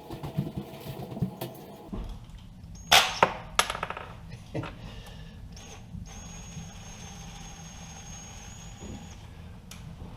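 Sharp metallic clanks and knocks from tools and mounting hardware, three loud ones in quick succession about three seconds in, followed by a thin, steady high-pitched whine lasting about three seconds.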